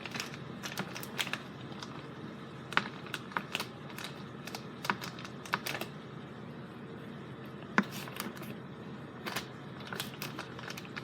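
Knife cutting a brick of Velveeta cheese into squares, with irregular sharp clicks as the blade comes down.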